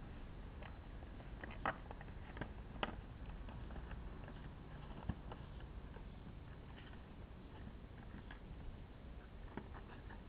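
Light knocks and clicks of a plastic plant pot as a puppy pushes and mouths it over grass, a few sharper knocks about two to three seconds in, over a faint low background hum.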